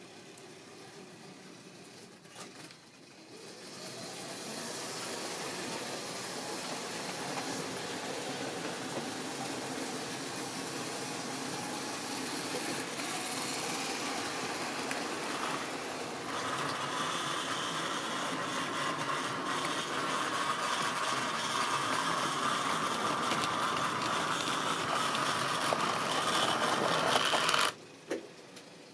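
Model railway train running on the layout: the electric motor of a model diesel locomotive whirring and wagon wheels clattering along the track. It starts a few seconds in, gets louder about halfway through as the train comes nearer, and cuts off suddenly near the end as the train stops.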